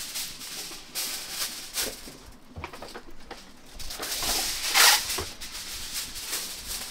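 Jerk chicken sizzling and crackling on a metal grill grate, with a louder swell of hiss near five seconds in.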